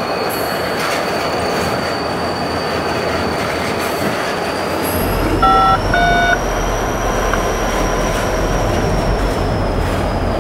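Freight train cars rolling past, with a continuous rolling rumble and a thin, high wheel squeal that rises slightly in pitch midway through. Two short tones sound about halfway through, and a deeper rumble joins at the same point.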